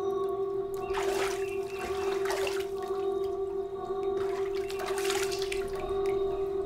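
A steady ambient music drone holding a few sustained tones. Over it, water sloshes twice: about a second in, and again about four seconds in.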